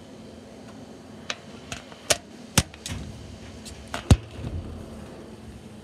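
Handling noise from a phone being moved about: a series of sharp knocks and clicks against the microphone, the loudest about four seconds in, followed by a brief low rubbing rumble.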